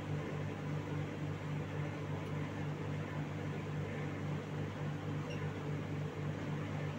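Steady low hum of kitchen machinery running, with a faint hiss over it.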